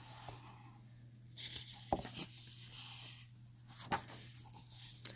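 A page of a hardcover picture book being turned by hand: soft paper rubbing and rustling, with a few light taps.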